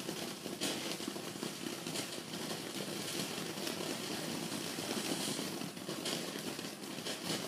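Ground fountain firework spraying sparks: a steady crackling hiss with a few light pops.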